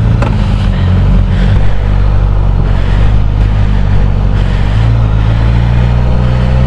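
Suzuki GSX-S motorcycle's inline-four engine running as the bike rides off, its note shifting a few times with throttle and gear changes.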